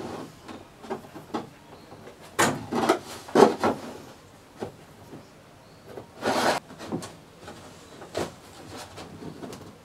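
Irregular knocks and clatter of wooden strips and metal F-clamps being handled on a plywood canoe's gunwale. A cluster of sharp knocks comes two and a half to four seconds in, and a longer, noisier burst a little past six seconds.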